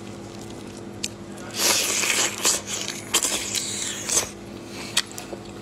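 Raw marinated shrimp being peeled by hand: its shell crackles and crunches as it is pulled away from the flesh. The crackling is loudest for about a second starting near two seconds in, followed by a few sharp clicks.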